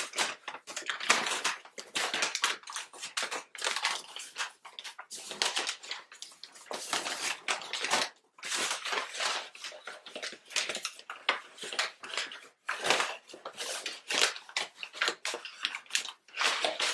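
Brown kraft packing paper crinkling and rustling in irregular bursts as it is unwrapped by hand from a small packed object.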